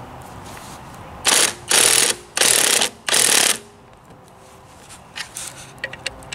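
Ratchet wrench tightening a coil-spring compressor on a strut, with four ratcheting strokes in quick succession starting about a second in, followed by a few light clicks near the end. The compressor is drawing down a worn front coil spring so it can come off the strut.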